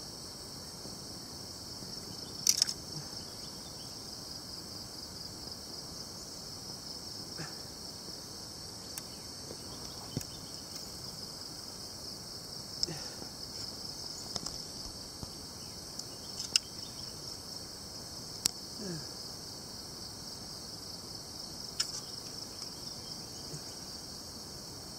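A steady, high-pitched insect chorus. A few short sharp clicks or knocks sound over it, the loudest about two and a half seconds in.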